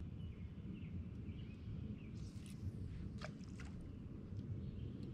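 Steady low rumble of outdoor background noise on open water, with faint bird chirps in the first couple of seconds and a few faint clicks about three seconds in.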